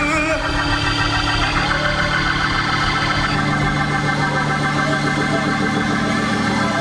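Organ holding sustained chords after the singing stops, moving to a new chord about a second and a half in and again just past three seconds.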